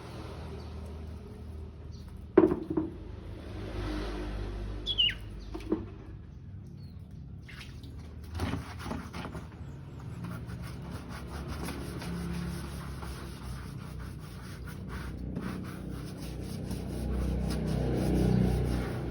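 Low background rumble with a few sharp knocks, the loudest about two seconds in, and a single short falling songbird call about five seconds in; the bird is otherwise mostly quiet.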